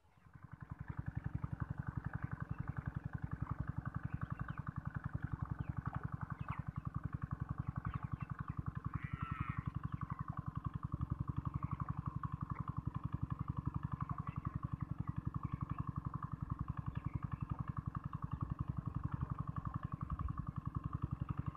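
Small engine running steadily with an even, rapid pulsing beat.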